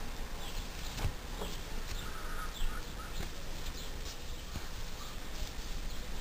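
Faint rustles and soft clicks of wool yarn and a tapestry needle being drawn through a crocheted fabric while cross-stitching, over a steady background hiss. A brief chirp comes about two and a half seconds in.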